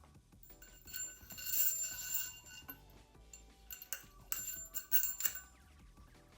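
Metal motorcycle fork parts knocking together. About a second in comes a bell-like metallic ring that lasts over a second, and a few light clinks and clicks follow.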